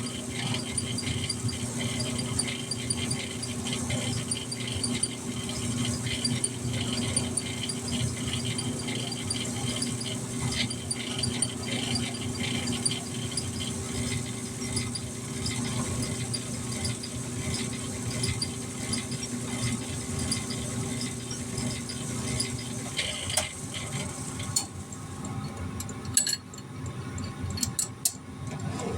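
Electric machine tool running steadily while drilling through a metal piece, with a light regular ticking over its hum. It stops about 23 seconds in, and a few metal clinks and knocks follow.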